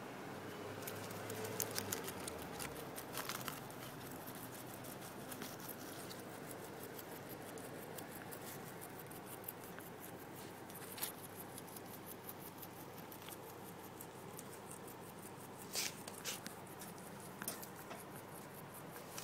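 Guinea pig chewing fresh grass: a fast run of small clicks from its teeth, with a few louder crunches near the start and again later.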